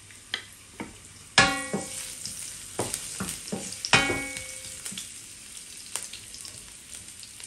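Sliced garlic sizzling in olive oil in a non-stick wok while being stirred with a wooden spatula. Two louder knocks make the wok ring, about a second and a half in and again around four seconds in, with lighter taps between and after them.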